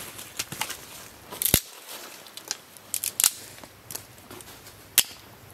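Dry sticks snapped by hand: a few sharp cracks, the loudest about a second and a half in, twice close together near three seconds, and again near the end, with smaller crackles between them.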